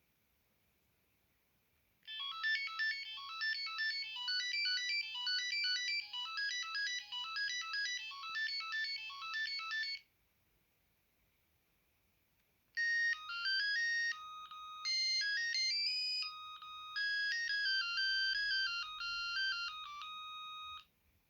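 Samsung SGH-2200 mobile phone previewing its preset ringtone melodies: a fast, electronic melody played one note at a time from about two seconds in, a pause, then a second, slower ringtone melody starting near the middle.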